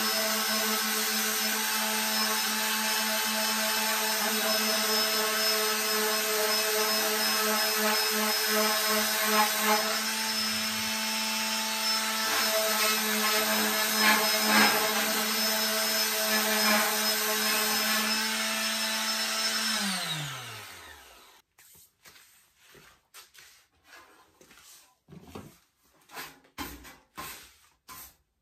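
Small electric palm sander running steadily, sanding fiberglass filler on a metal caravan side panel, with a motor hum under the rasp of the sandpaper that grows louder now and then. About twenty seconds in it is switched off and its motor winds down with a falling hum. After that, a stiff hand brush sweeps the sanding dust off the panel in a run of short strokes.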